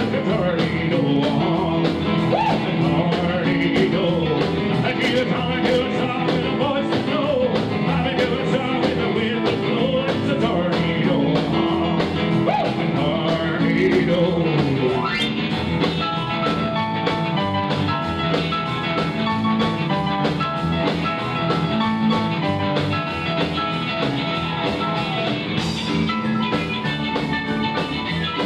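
Live rockabilly band playing: a male singer with guitar, upright double bass, drum kit and keyboard. The singing stops about halfway through and the band carries on with an instrumental break.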